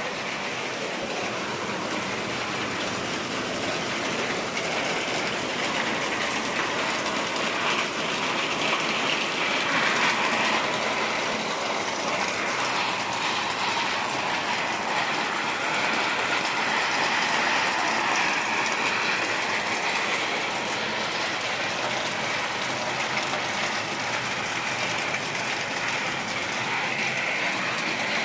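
Heavy rain falling steadily, with water streaming off the roof edges.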